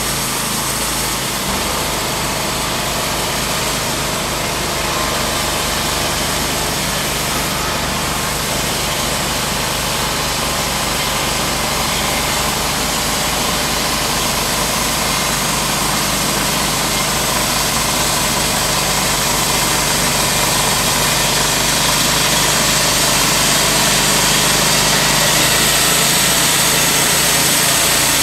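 TimberKing B-20 portable bandsaw mill running steadily as its band blade saws through a walnut log, growing slightly louder near the end as the saw head comes closer.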